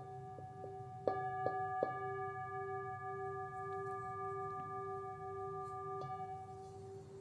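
Meditation background music: a soft steady drone under held bell-like tones. A little over a second in, three chime strikes come close together, and their tones ring on and fade out near the end.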